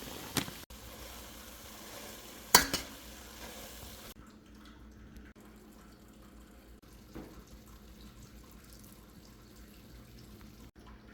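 Food sizzling in a frying pan, with a sharp clink of a utensil or pan about two and a half seconds in. The sizzle cuts off suddenly about four seconds in, leaving only faint low kitchen sounds.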